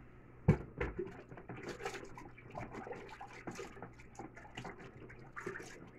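Stirring and scraping a soft, thick cream mixture in a pot: two knocks about half a second in, then irregular clicks and wet scraping.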